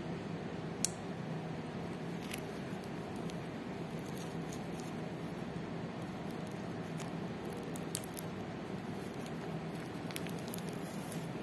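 Handling noise from a steel watch bracelet turned in knit-gloved hands: soft rustling over a steady background hiss and low hum, with a few short, sharp clicks scattered through, two close together near the end.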